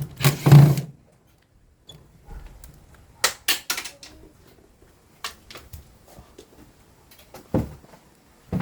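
Air conditioner parts clicking and knocking as the unit is taken apart: a short noisy burst near the start, a quick run of sharp clicks about three seconds in, and a couple of duller knocks near the end.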